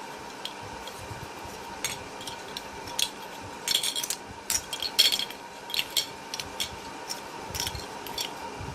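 Loose plastic Rubik's cube pieces clicking and clinking against each other and a hard surface as they are sorted into edge and corner pieces: a scatter of irregular sharp clicks, loudest about five seconds in.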